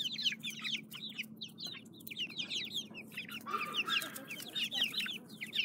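A flock of young chicks peeping continuously: many short, high, falling chirps overlapping one another.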